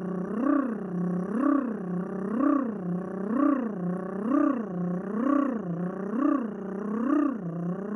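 A man's voice imitating a motor: one pitched hum that rises and falls in pitch about once a second, over and over in an even cycle.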